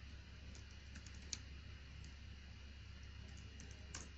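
Faint, scattered keystrokes on a computer keyboard as a file name is typed, a few separate clicks with the sharpest about a second in, over a low steady hum.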